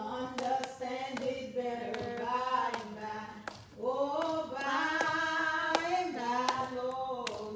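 A woman singing a slow hymn into a microphone with no instruments, holding long notes, while steady hand claps keep the beat.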